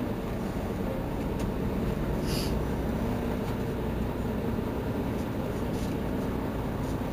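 Mercedes-Benz Citaro C2 city bus engine idling with a steady low rumble while the bus stands still, with a short hiss about two and a half seconds in.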